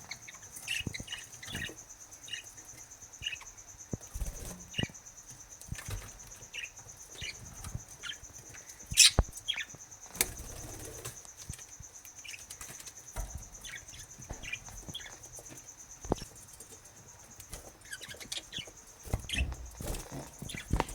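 Budgerigars chirping in short, scattered calls, with sharp taps, scratches and wing flutters around the nest box, and one louder sharp sound about nine seconds in.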